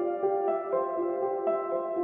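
Background music: a slow, mellow instrumental with sustained notes, a soft new note entering about every half second.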